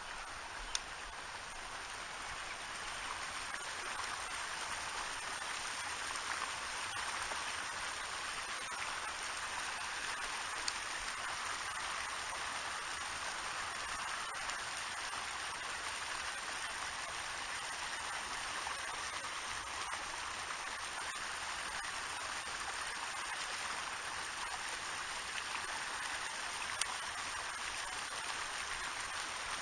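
Steady rushing water noise, an even hiss that swells slightly a few seconds in, with a few faint sharp clicks.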